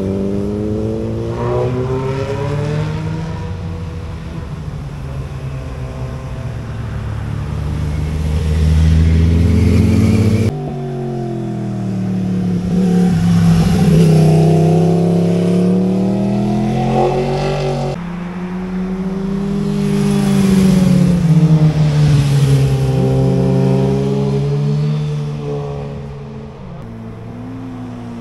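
Sport motorcycles riding through a hairpin bend, engine pitch falling and rising as riders roll off and open the throttle. Several separate passes, the sound jumping abruptly from one to the next.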